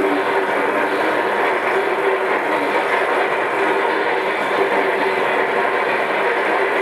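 Freight train passing close by: the steady rolling rumble and rattle of boxcars on the rails.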